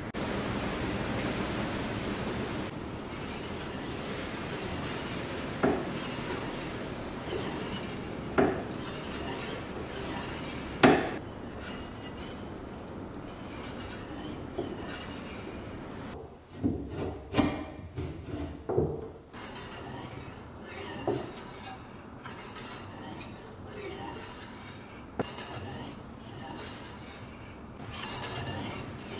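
A screwdriver scraping as it drives a small screw into the wooden guard of a cast-iron bread slicer, then scattered knocks and clicks as the slicer is handled on a wooden bench, with a quick run of several knocks about two-thirds of the way through.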